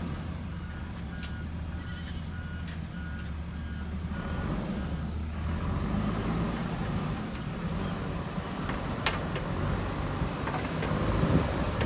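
JCB backhoe loader's diesel engine running steadily, with a reversing alarm beeping in short repeated tones for about three seconds starting about a second in. A few sharp knocks come near the end.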